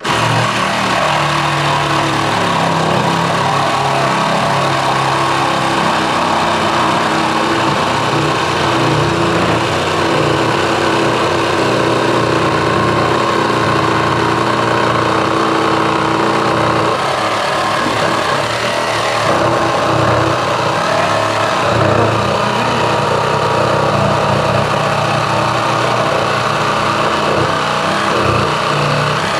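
A Makita JR105DZ cordless reciprocating saw running under load as its blade saws through a piece of timber. Loud, steady motor and blade noise starts abruptly and continues without a break.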